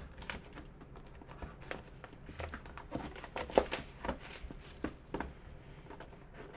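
A trading-card box and its wrapping being torn open and handled: an irregular string of short crinkles, crackles and clicks, busiest about three to four seconds in.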